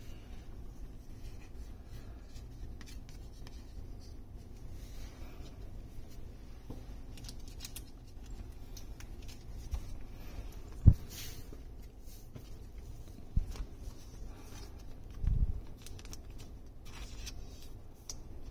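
Magic: The Gathering cards being handled and laid out on a tabletop: soft rustling and sliding of card stock with small clicks, and a few low thumps on the table, the sharpest about eleven seconds in.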